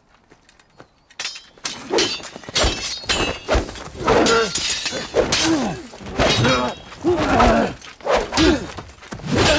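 Film sword-fight sound: a quick burst of slashes and hard impacts, with men yelling and grunting at each strike. It starts a little over a second in, after a short hush.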